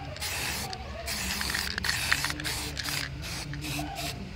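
Aerosol spray-paint can hissing in several short bursts as it sprays an engine oil pan.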